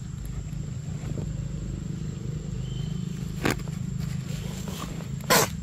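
Two short, sharp crunches about two seconds apart, the second louder, as a macaque bites into a corn cob. A steady low rumble runs underneath.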